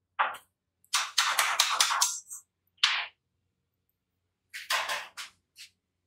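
Thin stamped steel plates clicking and clattering against each other as they are stacked by hand, in several short bursts of rapid clicks with gaps between, the longest run about a second in.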